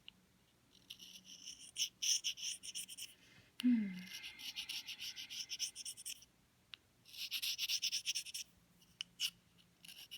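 A reed knife scraping the bark off the cane of an English horn reed blank: three spells of quick, light strokes, several a second, with short pauses between. A sharp click and a brief low falling sound come at the start of the second spell.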